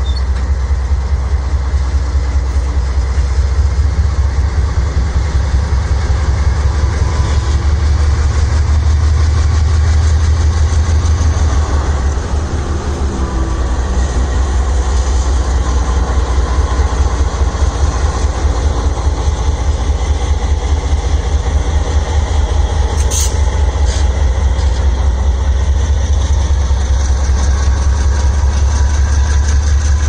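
Diesel-electric freight locomotive moving slowly past, its engine running steadily with a heavy low rumble. A brief high-pitched sound cuts in about two-thirds of the way through.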